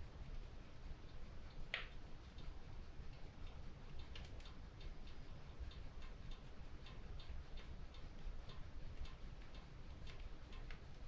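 Fire crackling in a stone fireplace: scattered small ticks and pops, with one louder pop about two seconds in, over a low steady rumble.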